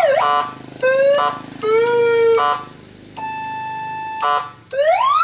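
Electronic siren module played through a horn loudspeaker, switching between siren patterns. It opens with a sweep up and back down, then gives a short rising tone, a held tone, a longer steady tone, and a fast rising sweep near the end.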